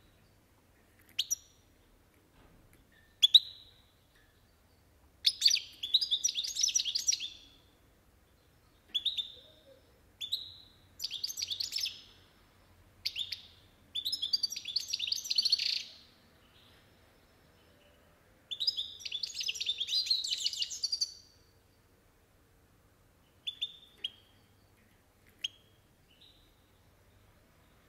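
European goldfinch singing: single short chirps scattered between bursts of rapid twittering song, each burst lasting about two to three seconds.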